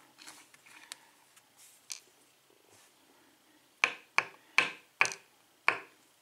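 Small metal lock parts being handled on a bench: faint rustling, then five sharp little clicks about half a second apart in the second half, as the pins of a cylinder lock's plug are checked.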